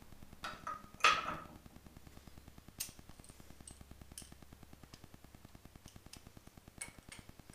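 Light metallic clicks and taps of small parts and tools being handled at a motorcycle carburettor, the sharpest about a second in. Underneath runs a steady fast ticking, about eight to ten ticks a second, a clicking fault in the recording itself.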